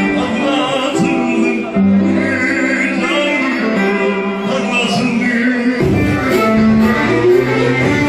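Live Turkish arabesk music filling a crowded hall: a band playing a melody of long held notes. The bottom end grows fuller about six seconds in.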